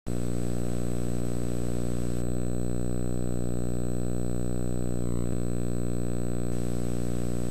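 Steady electrical buzz on an old videotape's soundtrack, a low hum with a stack of even overtones and a thin high whine above it. A brief glitch wavers through it about five seconds in.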